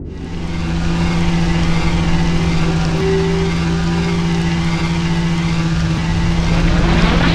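A loud steady rumbling drone with a low hum, starting abruptly. Near the end a rising whoosh builds up.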